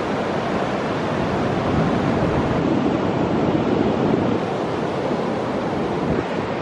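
Ocean waves breaking on the shore, heard as a steady rush of noise, with wind on the microphone.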